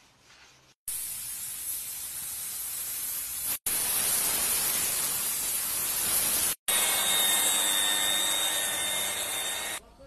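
Compressed-air paint spray gun with a gravity-feed cup hissing as it sprays red paint onto car body panels. The steady hiss comes in three stretches of about three seconds each, broken twice by a sudden brief silence, and a thin high whistle runs through the last stretch.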